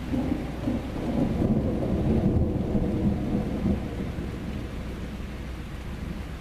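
A peal of rolling thunder over steady rain: the rumble swells over the first couple of seconds and dies away after about four seconds, leaving the rain.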